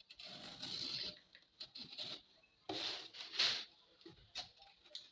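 Paper covering on a speaker cabinet being cut and trimmed, crinkling and scratching in bursts. The loudest stretch comes around the middle.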